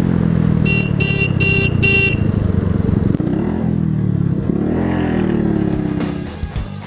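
125cc cruiser motorcycle engine running on the move, with four short horn toots in quick succession about a second in. The engine pitch falls and rises again a few seconds later, and the sound drops away near the end as guitar music comes in.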